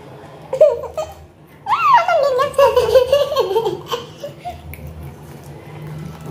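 A girl laughing: a short burst about half a second in, then a longer giggling run of a couple of seconds.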